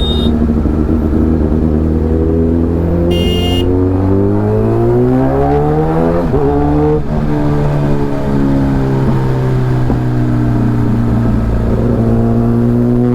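Kawasaki Ninja ZX-10R's inline-four engine heard onboard while riding. Its pitch climbs under acceleration for a few seconds, drops sharply at an upshift about seven seconds in, then holds fairly steady. There is a brief high beep about three seconds in.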